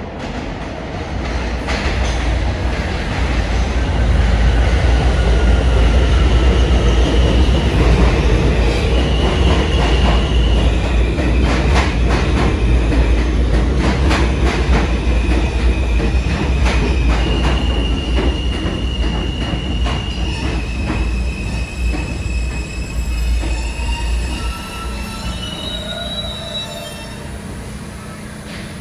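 New York City R160 subway train pulling into the station and slowing to a stop: a loud low rumble with rapid clacks of the wheels over the rail, and long steady high-pitched squeals that step from one pitch to another. Near the end the rumble dies away and a few short higher squeals are heard as the train halts.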